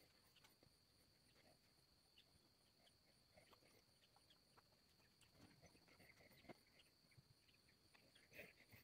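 Near silence: faint room tone with a steady high whine and a few faint scattered ticks.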